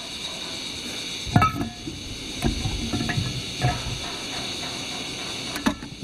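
Metal pots and cups of a US military M-1942 nested cook set clinking and knocking as they are fitted together by hand. There are about five knocks, the loudest about a second and a half in, some with a short metallic ring. A steady high insect drone sounds throughout.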